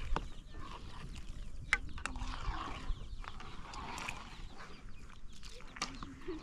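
Chickens clucking, with several sharp knocks in between.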